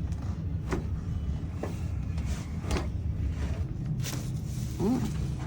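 Chiropractic adjustment: four short, sharp cracks about a second apart over a steady low hum.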